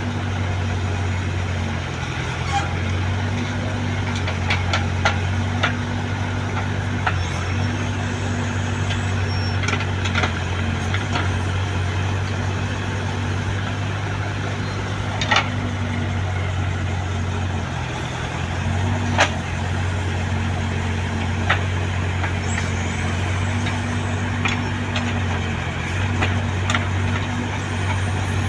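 Heavy diesel engine of earth-moving machinery running steadily, its low drone easing and picking up slightly every few seconds, with scattered sharp knocks and clanks over it.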